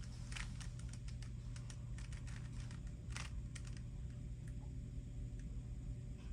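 A run of small, irregular clicks, several a second, over a steady low hum.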